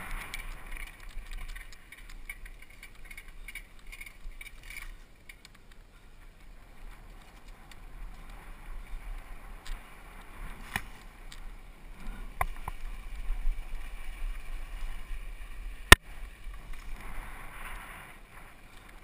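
Mountain bike running down a rough dirt singletrack: low rumble with scattered rattles and clicks from the bike, and one sharp, loud click about three quarters of the way through.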